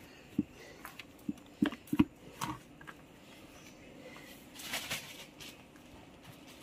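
A hand picking through a plastic bucket of small wet freshly caught river fish: a few short, soft wet clicks and slaps in the first two and a half seconds, then a brief rustle about five seconds in.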